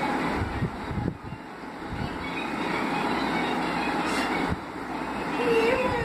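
Steady rumbling background noise with a few low knocks and faint thin squeals, and a woman's voice starting just before the end.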